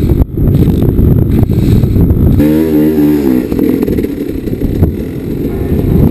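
KTM dirt bike engine running under heavy wind buffeting on the microphone. About two and a half seconds in, the engine note comes through clearly for about a second, wavering in pitch, before it is buried again in rough rumbling noise.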